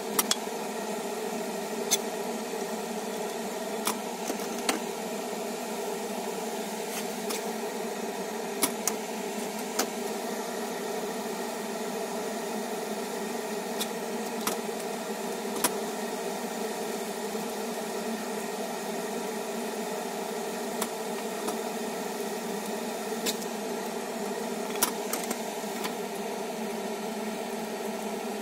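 Steady whirring hiss with scattered sharp pops, about one every second or two, from a pan of spaghetti and clams simmering in its broth on the stove.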